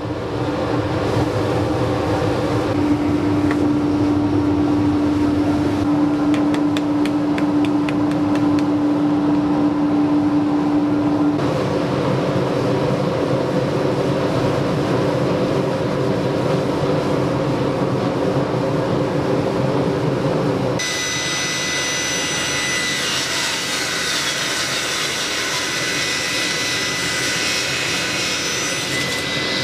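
Table saw and its dust collector running with a steady drone and a held hum. The sound shifts abruptly twice, about 11 and 21 seconds in.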